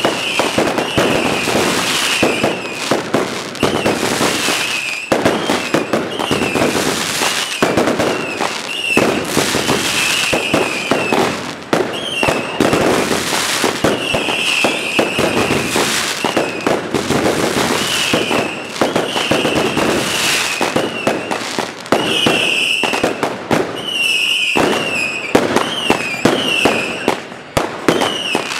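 Fireworks going off in a continuous barrage of bangs and crackling, with short high whistles rising and falling every second or so.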